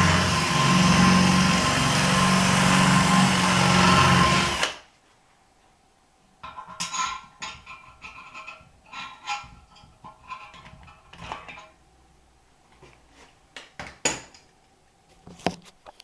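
Power drill running steadily, drilling out a seized back nut on a toilet siphon, then stopping suddenly about five seconds in. After that, a scattering of light clicks and knocks.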